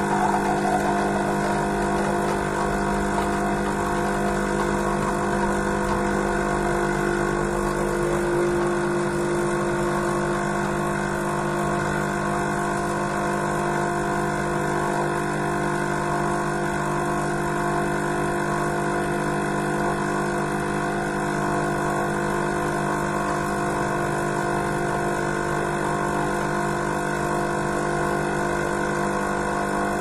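Jura GIGA XJ9 bean-to-cup coffee machine running with a constant, steady hum as it brews two 100 ml black coffees at once.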